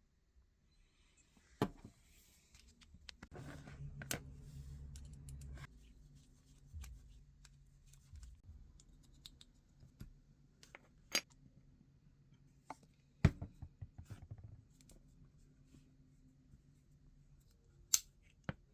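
Scattered sharp clicks and taps of small tools and parts being handled at a workbench, the loudest about two-thirds of the way through, over a faint steady low hum that starts after a few seconds and stops a little before the end.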